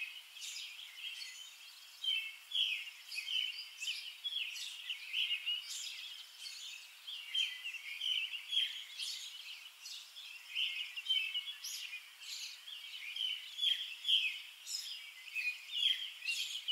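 Songbirds chirping outdoors: many short, high calls overlapping in quick, irregular succession, with no speech.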